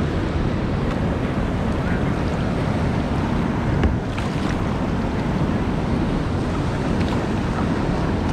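Wind buffeting the microphone over the steady lapping and splashing of water around a kayak being paddled, with one sharper paddle-stroke splash about four seconds in.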